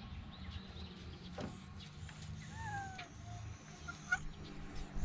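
A cat meowing once, a short call that falls in pitch, over a steady low hum.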